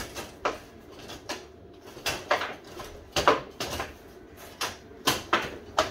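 Table football game in play: the ball and the rods' players striking each other and the table walls in irregular sharp knocks and clacks, with brief lulls between rallies.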